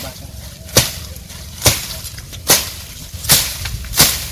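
Steady chopping with a blade: five sharp chops, about one every 0.8 s.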